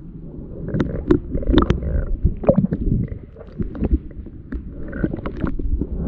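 Hand digging and raking through sea-bottom sand, heard underwater: a muffled low rumble of moving water with many scattered sharp clicks and crackles of sand grains and shell.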